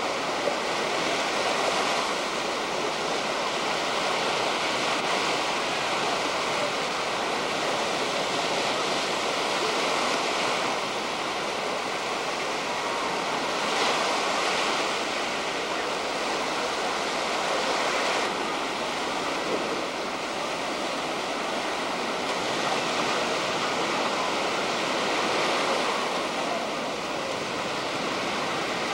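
Small waves breaking and washing up on a beach: a steady rushing surf that swells and eases every few seconds.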